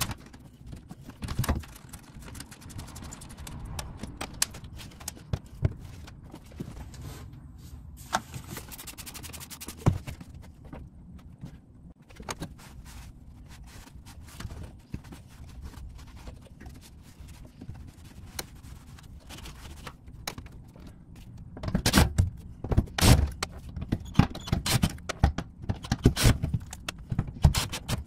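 Intermittent clinks, scrapes and knocks of hand work on the fuel level sender mounting at the top of a fuel tank, busier and louder over the last several seconds.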